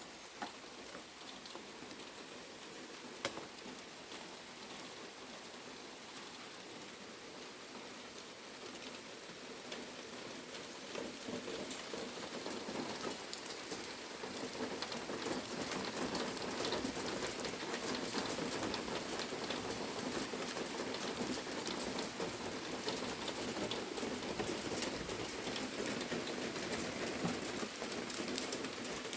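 Summer storm rain falling steadily, with many individual drops ticking on a surface. It grows heavier and louder about a third of the way in, then holds.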